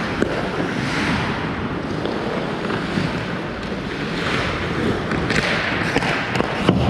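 Ice hockey play: skate blades scraping and carving on the ice over a steady rush of rink noise, with a few sharp clacks of sticks and puck, the loudest near the end.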